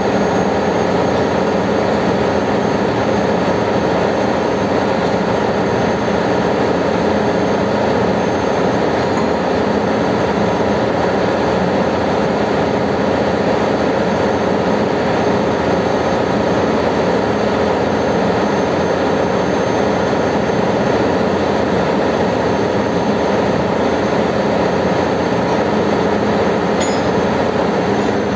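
Ship's engine-room machinery running: a loud, steady drone with several steady hums, unchanging throughout. A small faint clink comes near the end.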